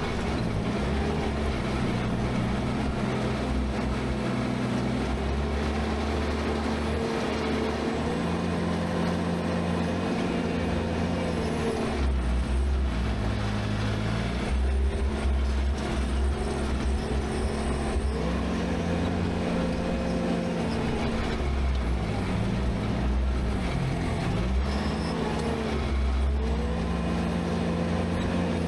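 Skid steer engine running steadily while working, its pitch dipping and rising again and again as it takes load.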